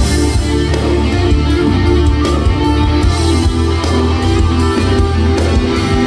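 Live band playing an instrumental passage with no singing: guitar over a heavy, steady bass line.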